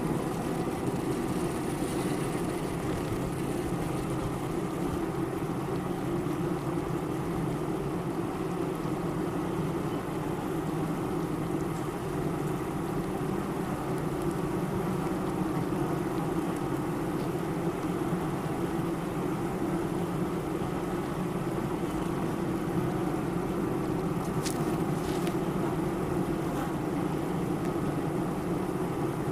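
Honey bees at a hive humming steadily, a dense low drone that does not change.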